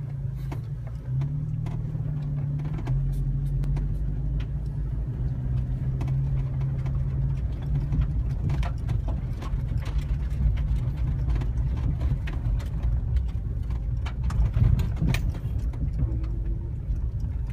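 Car engine running and low road rumble heard from inside the cabin while driving slowly over a rutted dirt road, with frequent small knocks as the car goes over bumps. A steady engine hum is clearest in the first half, then the rumble grows rougher.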